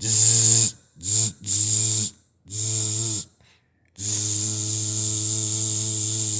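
A person's voice imitating electric zaps: a low buzzing hum with a hiss over it. It comes in four short bursts, then one long steady buzz from about four seconds in.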